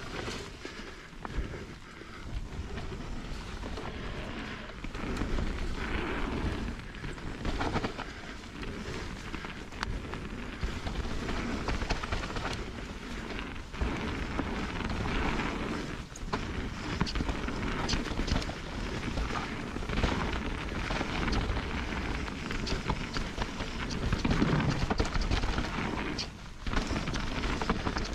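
Mountain bike riding fast down a dirt trail: a steady rumble of tyres on dirt and wind on the microphone, with frequent sharp clicks and rattles from the bike over stones and roots.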